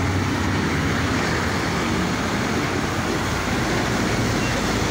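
Steady street traffic noise: an even rumble and hiss of passing motor vehicles, with no distinct events.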